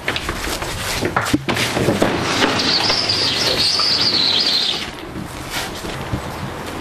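Wooden transport crates handled and shoved onto a truck's metal flatbed: a few sharp knocks, then a high-pitched sound lasting about two and a half seconds.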